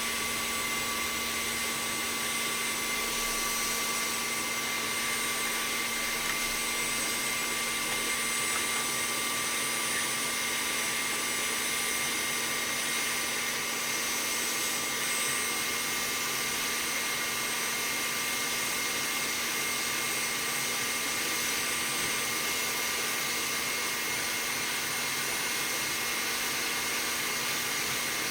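Electric paint-stripper heat gun with a nozzle attachment, running steadily: an even rush of air with a steady motor whine.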